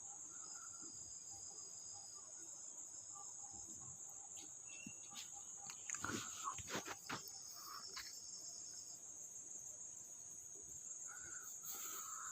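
A faint, high, steady trill, like a cricket, runs throughout. Between about six and eight seconds in come a cluster of small clicks and rustles of wires and tools being handled.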